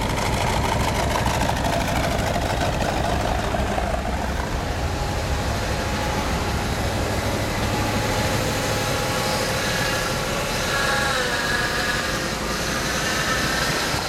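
1971 Plymouth 'Cuda's 426 Hemi V8 idling steadily.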